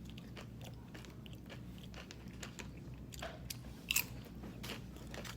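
Close-up eating sounds: chewing and crunching, with irregular crisp cracks typical of tortilla chips being bitten, the sharpest one about four seconds in.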